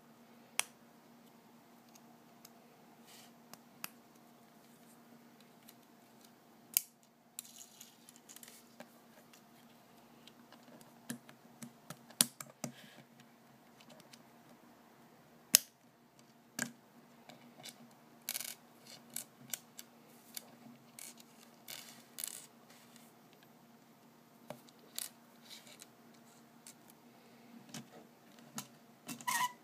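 Small LEGO car model handled on a wooden tabletop: irregular plastic clicks, taps and light scrapes, with a few sharper knocks as it is set down and pushed about.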